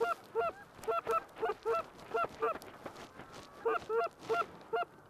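Goose honking: a rapid run of about a dozen short, clipped two-note honks, with a pause of about a second midway.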